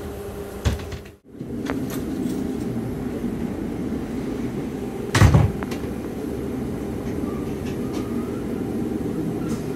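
Class 150 Sprinter diesel multiple unit heard from inside the carriage: a steady engine and running drone, broken by a short gap in the sound about a second in and by a single loud clunk about five seconds in.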